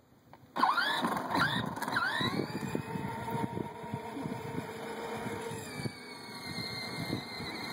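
Battery-powered ride-on toy quad's electric motor and gearbox whining, starting abruptly about half a second in, gliding in pitch briefly as it gets going, then running at a steady pitch.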